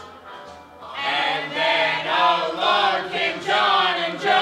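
A small group of young men and women singing a song together, coming in about a second in after a short pause.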